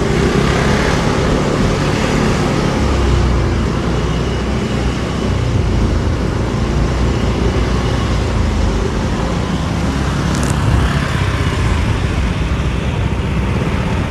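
Motor scooter ridden slowly along a street: steady engine and road noise, heaviest in the low end, with other scooters running close ahead. A brief tick about ten and a half seconds in.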